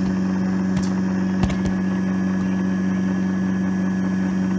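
JFJ Easy Pro disc repair machine running its polishing cycle, buffing a scratched DVD with the solution-number-one pad: a steady motor hum with a low tone. A few light knocks come about one to one and a half seconds in.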